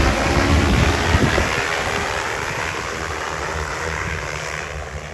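Rotors of a DJI Agras T30 six-rotor agricultural spray drone, a dense rushing drone with a low hum, fading steadily as it flies away over the field.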